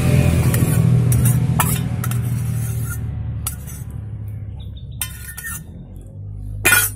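Metal spoon scraping and clinking against a small metal cooking pot while eating, with several separate short clinks and the loudest near the end. A low rumble fades away over the first few seconds.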